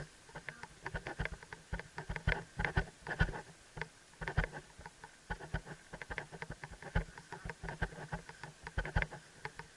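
A helmet-mounted camera knocking and rattling against a riding helmet as the horse walks, a run of irregular clicks and knocks several times a second. The camera is a bit too heavy for the helmet.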